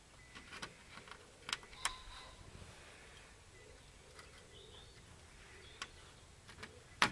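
Faint scattered clicks and taps of test-lead clips being handled and moved on the metal terminals of a solar panel's junction box, with a sharper click near the end.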